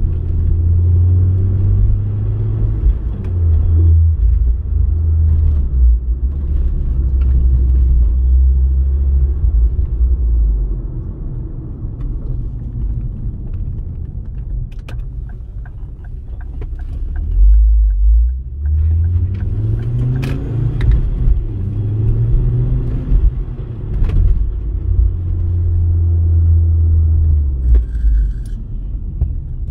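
Ford Focus ST mk2's turbocharged five-cylinder engine running with road noise while the car is driven smoothly, a steady low drone. The drone eases off for several seconds, breaks off briefly about two-thirds of the way in, then rises in pitch as the car picks up speed and evens out again.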